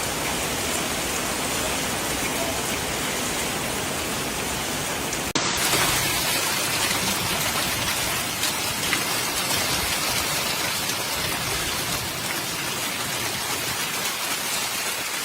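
Heavy rain pouring down in a steady, dense hiss. About five seconds in it cuts abruptly to a louder, hissier downpour.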